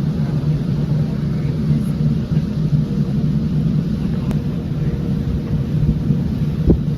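Canal tour boat's engine running steadily, a loud low drone with a faint steady hum above it; a brief low knock near the end.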